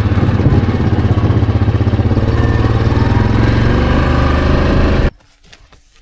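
Farm vehicle's engine running steadily with a quick pulsing beat, cutting off suddenly about five seconds in.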